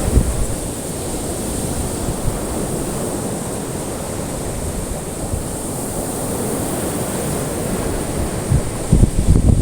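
Ocean surf: waves washing onto a shore in a steady low rush, with heavier low rumbles near the start and end. A thin, steady high hiss runs above it.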